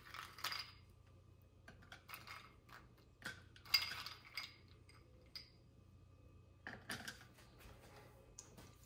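Ice cubes being taken from a glass bowl and dropped into a glass of iced coffee: a scattered series of light clinks of ice on glass, the loudest a little before the middle.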